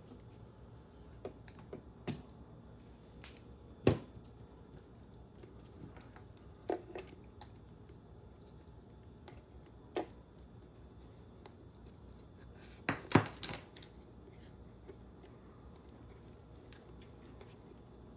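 Scattered clicks and knocks of small hard parts and tools being handled while an RC car is put back together. There is a sharp knock about four seconds in and a quick run of knocks about two-thirds of the way through.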